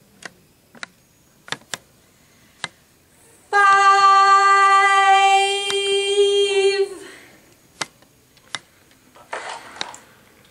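A woman sings one long, steady held note for about three seconds, starting suddenly and then fading. A few light clicks and taps come before it.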